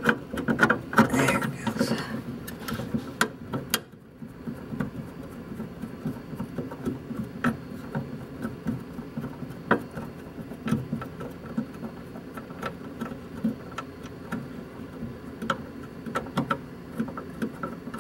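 Light, irregular metal clicks and taps of a half-inch wrench and flathead screwdriver working a bolt and square nut loose on a stock cowl vent linkage. The first few seconds are busier and louder, with handling rustle among the clicks.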